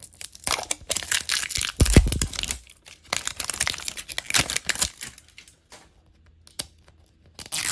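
Shiny plastic wrapping being torn off a Mini Brands capsule ball along its tear strips, crinkling and crackling in quick bursts. There is a dull knock about two seconds in, and more crinkling near the end.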